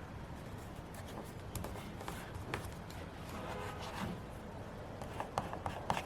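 Stickers, washi tape and paper being handled on a planner page: scattered light rustles, taps and clicks over a steady low background hum, with a few sharper clicks near the end.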